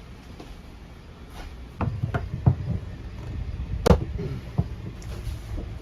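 Knocks and clicks from a metal bathtub drain fitting being worked with channel-lock pliers: a few light knocks about two seconds in and one sharp click near four seconds.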